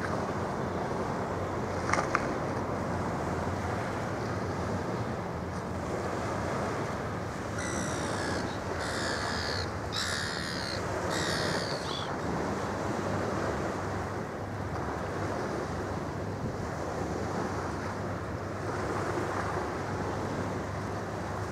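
Gull calling four times in quick succession over steady wind and water noise, with a low steady hum underneath. A sharp double click about two seconds in.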